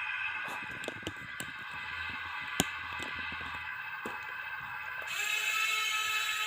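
Radio-controlled hydraulic excavator's pump whining steadily, with scattered sharp clicks and knocks from the machine. About five seconds in, the whine changes pitch and grows louder.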